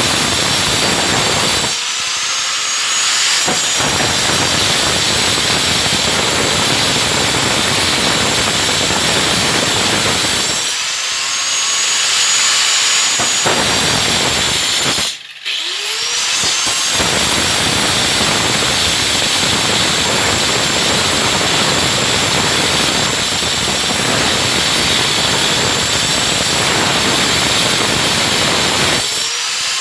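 Circular saw running and cutting, a loud steady noise that eases off briefly a few times. About halfway through it nearly stops for a moment, then its high whine glides back up as the blade spins up again.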